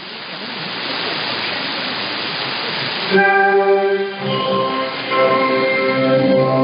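Shortwave radio reception of Voice of Korea on 11710 kHz, cut off above about 5 kHz: about three seconds of static hiss, then orchestral music starts and carries on.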